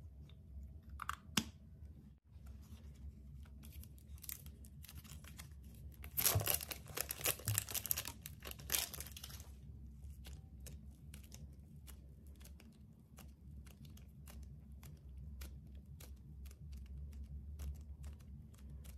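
Hands kneading and stretching slime: sticky crackling and many small popping clicks. The crackling is loudest for a few seconds about six seconds in.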